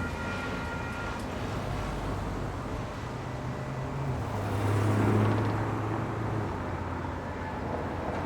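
Road traffic, with one vehicle passing loudest about five seconds in, its engine hum swelling and fading. The steady ringing of the crossing bells stops about a second in.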